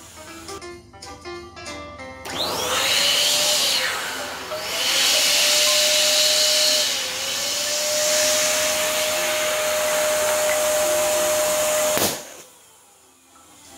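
Electric balloon pump blowing air into a latex balloon: a steady rushing hiss with a whistling tone that wavers twice, then a sharp pop about twelve seconds in as the balloon bursts, and the pump noise stops.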